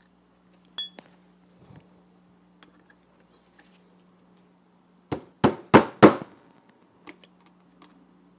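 Small hammer tapping on a Charter Arms Bulldog revolver's steel frame, seating its pins: four sharp taps in quick succession a little past halfway, then two lighter ones. A single metallic clink with a short ring comes about a second in.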